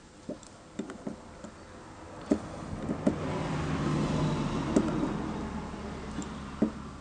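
A passing road vehicle, a swell of engine and tyre noise that rises to a peak about four to five seconds in and then fades. Over it, scattered sharp metallic clicks of diagonal cutters biting and prying at the top rim of a zinc-carbon battery's casing.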